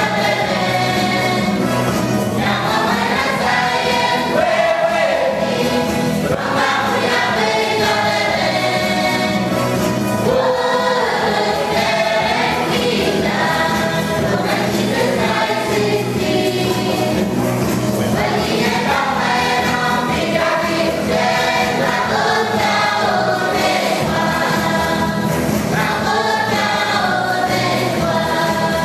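A group of women and girls singing together in chorus, without a break.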